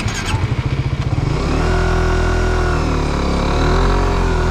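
Suzuki GSX-R150's single-cylinder four-stroke engine running at low revs with a pulsing beat, then pulling away about a second and a half in, its pitch rising, dipping once and climbing again.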